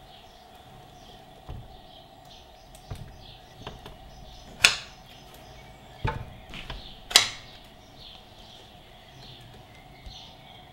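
Clicks and metallic clunks from tilting the bevel of a Bosch GTM 12 JL combination saw: a few light knocks, then two sharp, loud clicks about two and a half seconds apart.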